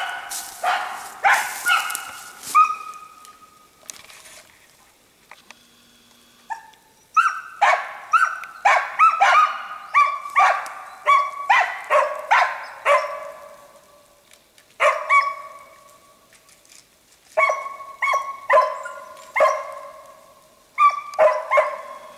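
Hunting laika barking in runs of short sharp barks, about two a second, breaking off for a few seconds about three seconds in and again briefly near the middle.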